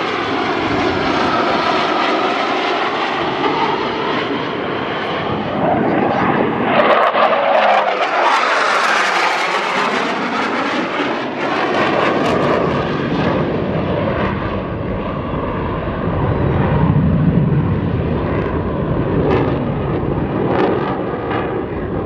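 Two CF-18 Hornet fighter jets flying past, the noise of their twin General Electric F404 turbofans loud and steady with a sweeping, swirling tone. The sound is brightest and harshest about seven to ten seconds in as they pass closest, then turns to a deeper rumble as they fly off.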